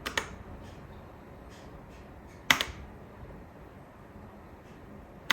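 Keys on a MageeGee 60% mechanical keyboard with red linear switches being pressed: three sharp double clacks about two and a half seconds apart, the middle one the loudest, with a few faint ticks in between.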